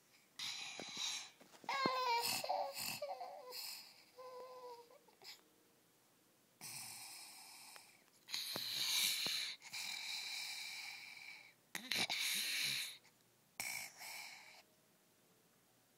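A sleeping child snores in harsh, wheezy breaths with short silent gaps between them, the obstructed breathing of sleep apnea from enlarged tonsils and adenoids. About two seconds in comes a brief whimpering cry, heard twice.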